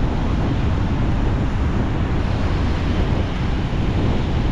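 Wind buffeting the microphone over the steady wash of rough surf breaking on the shore.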